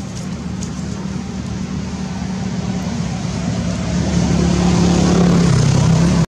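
A motor vehicle engine running steadily, getting louder over the last two seconds, its pitch dipping slightly near the end.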